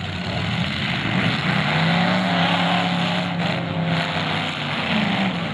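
Demolition derby cars' engines running hard under load, a steady loud drone that revs up and falls back near the end.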